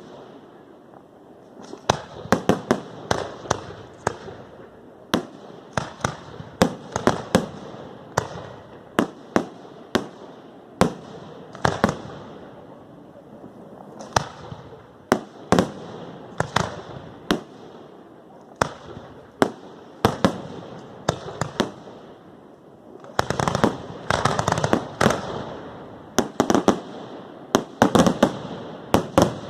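Fireworks display: a continuous run of sharp bangs, at times several a second, each trailing off in an echo, with crackling between them. The bangs come thickest in two dense clusters in the last third.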